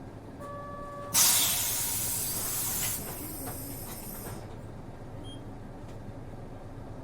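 City bus air system: a short steady beep, then just after a second in a sudden loud blast of compressed-air hiss that fades away over about three seconds. Under it the bus engine idles with a low, steady hum.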